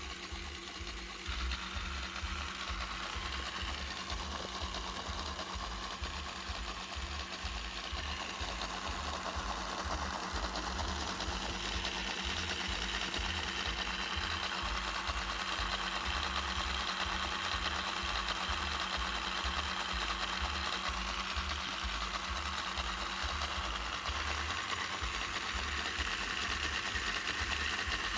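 Small electric motor inside a LEGO model tractor running steadily, turning the model engine's crankshaft and pistons with a fast, even whirring clatter. It grows a little louder about ten seconds in.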